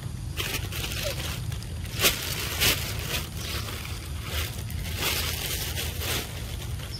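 Young macaque eating a ripe mango: a run of wet squishing, sucking bites, two sharper ones just after two seconds in, over a steady low rumble.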